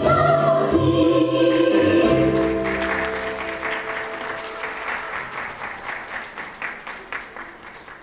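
Recorded music with held sung notes ends about two seconds in, followed by audience applause that gradually fades.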